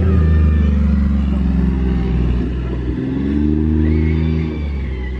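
Motor vehicle engine running loudly, revving up and easing off a couple of times.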